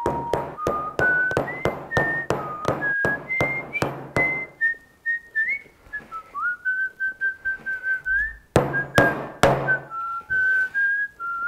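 Hammer blows driving hobnails into a shoe sole on an iron cobbler's last, about three sharp strikes a second for the first half, a pause, then three more strikes near the end. Over it someone whistles a tune.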